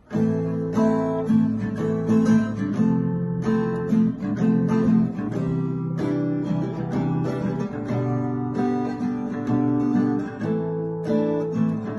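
Background music: a strummed acoustic guitar that starts suddenly and keeps a steady rhythm.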